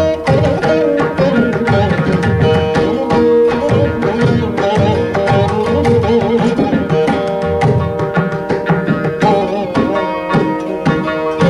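Carnatic music: a Saraswati veena playing a melody in raga Begade, its plucked and sliding notes over dense, rapid mridangam strokes.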